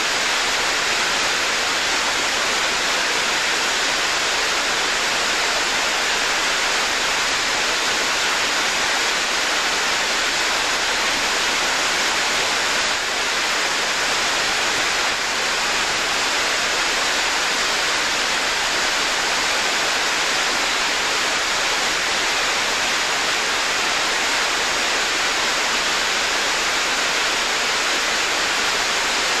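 Water pouring down a rocky, stepped waterfall: a steady, even rushing.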